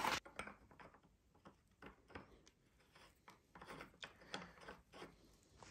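Faint, irregular metallic clicks and ticks as a hex-headed bar-end counterweight insert is turned by hand into the freshly tapped end of a clip-on handlebar, with a louder knock right at the start.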